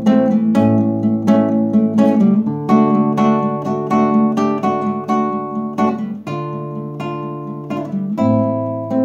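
Nylon-string classical guitar playing an instrumental passage between sung verses: repeated plucked and strummed chords in a steady rhythm, with the chord changing a few times.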